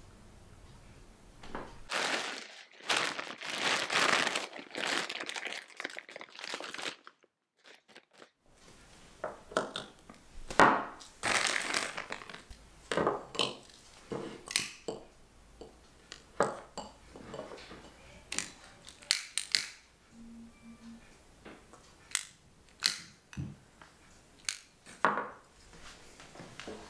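A few seconds of crinkling, then a long run of light clinks and knocks as small glass jam pots and metal-cased tealights are handled and set down on a wooden table.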